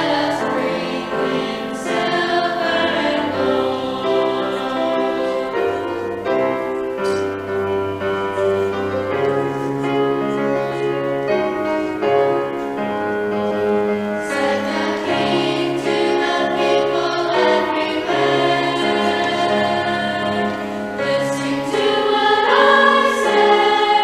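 Choir of children and adults singing a Christmas piece together, accompanied by piano, with sustained notes moving in several voices.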